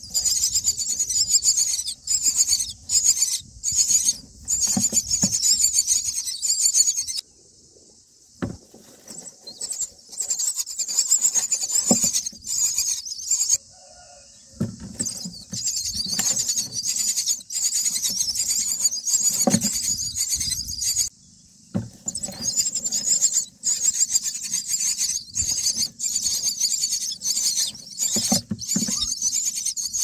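Common myna nestlings begging: a chorus of high-pitched, rapid chirping calls in four bouts of several seconds each with short pauses between. Under it are scattered knocks and rustling from the nest.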